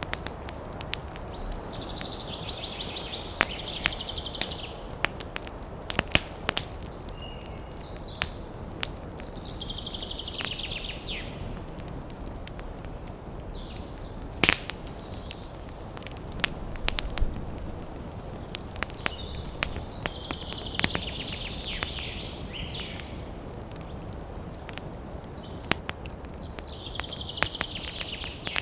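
Campfire crackling, with frequent sharp pops over a steady low rush. A high, rapid rattling trill from a woodland creature comes four times, each lasting a second or two.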